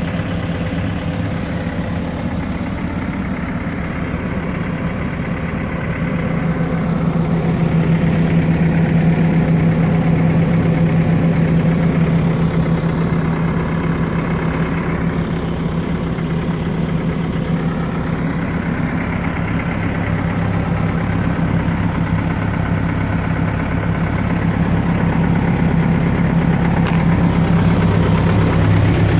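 Diesel engine of a Cat 430D backhoe loader idling steadily, its level swelling and easing gently a few times.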